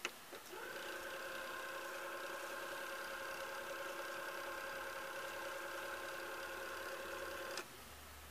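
Nakamichi MR-1 cassette deck fast-winding the tape: a steady motor whir with a hum of several even tones that starts about half a second in and stops near the end. Small clicks of the transport controls come at the start and end.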